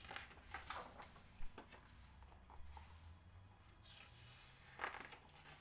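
Near silence with a few faint, short rustles of a paperback picture book's pages being handled and turned.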